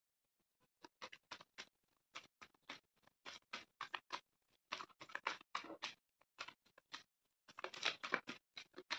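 A tarot deck being shuffled by hand, a quiet, irregular run of soft card slaps and clicks.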